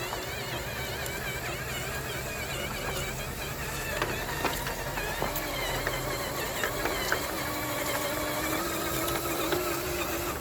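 Electric motor of a JD Models Hero / Desert Runner RC truck whining as it is driven over dirt, its pitch rising and falling with the throttle. Scattered sharp clicks run through it.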